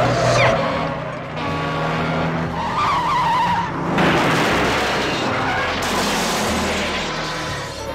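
Film chase sound effects: a fire engine and police cars speeding, with tyres squealing and skidding. About four seconds in, a loud crash begins, followed by a long grinding smash of metal.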